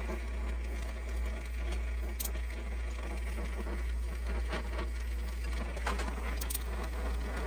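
Oxy-fuel gas torch flame running with a steady rushing hiss while it heats the root of a Mauser bolt handle clamped in a steel vise, bringing it up to bending heat. A couple of faint clicks come about two seconds in and again around six seconds.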